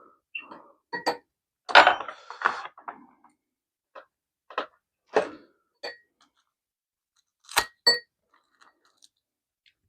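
Close-up eating sounds of a person eating kimchi stew: short bites and chewing sounds with gaps between them, loudest about two seconds in. About seven and a half seconds in, a metal utensil clinks twice against a bowl with a short ring.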